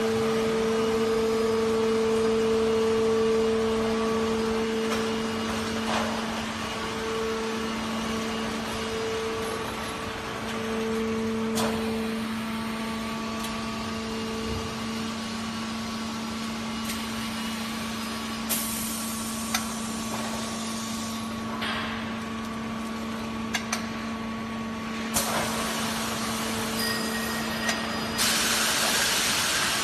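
Foam block compression and roll-packing machine running: a steady, even hum from its drive, with scattered clicks and knocks and three bursts of hiss in the second half, the last near the end.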